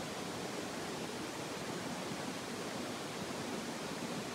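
Steady, even background hiss with no other sound.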